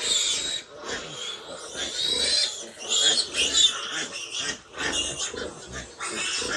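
Pigs squealing in repeated high-pitched bursts, with grunting between.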